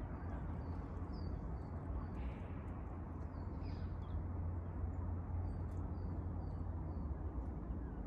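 Small birds chirping, a series of short high calls scattered through, over a steady low rumble.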